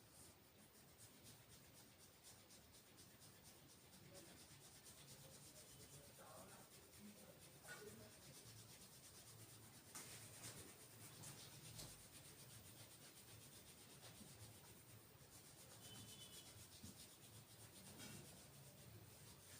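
Faint, continuous rubbing of hands massaging skin and hair, with a few soft clicks scattered through it.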